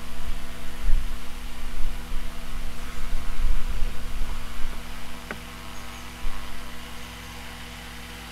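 A steady electrical hum, with uneven low rumbling through the first half and a single sharp click about five seconds in.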